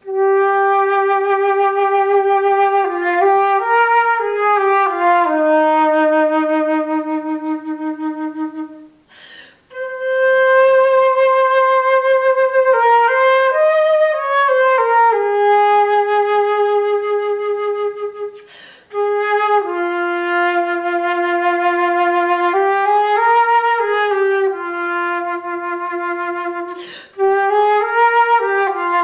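Solo concert flute playing a slow melody of long held notes, without accompaniment. The phrases break for quick breaths about nine, nineteen and twenty-seven seconds in.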